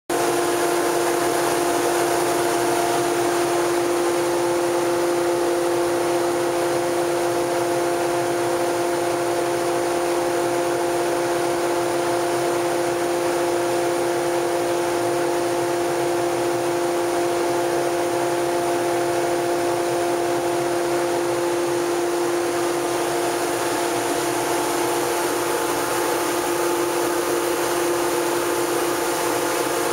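Powder-coating spray booth running: a steady whir and rush of air from the booth's extraction fan, with a constant hum, while a hand-held powder-coating gun sprays powder.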